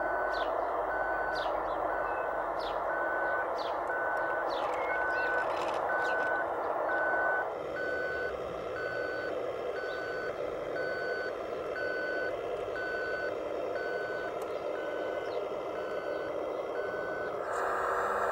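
Radio-controlled scale construction machine's sound module playing a diesel engine running with a reversing alarm beeping steadily and evenly. The engine sound drops a little about halfway through, and the beeping stops near the end as the engine sound changes.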